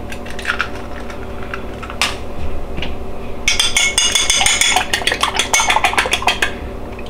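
Ceramic dishes clinking once about two seconds in, then a spell of rapid clicking and scraping as a raw egg is tipped and worked out of a small ceramic dish into a bowl of flour.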